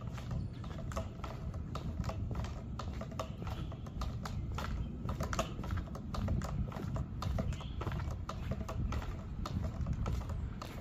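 Footsteps on a concrete driveway, about two steps a second, with a low steady rumble underneath.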